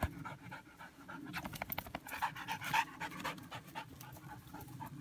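A dog panting hard and fast, with a run of short crackles and rustles in the middle as it moves about in loose hay.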